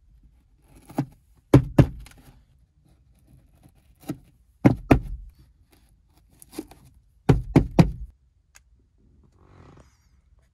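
Hand pressing and tapping rubber patches onto a car's fabric headliner: a series of short dull knocks and thunks, several coming in quick pairs.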